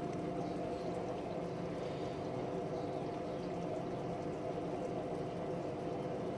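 Water running and trickling through a siphon line used to drip-acclimate shrimp into a container, over a steady low hum.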